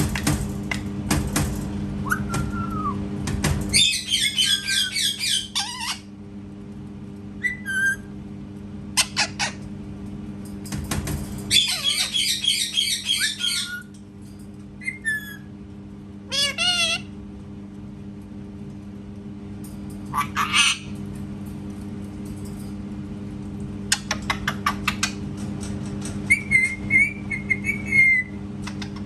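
Parrot calling: two long runs of rapid, high warbling chatter, about four seconds in and again about twelve seconds in, with short whistles and squawks between, over a steady low hum.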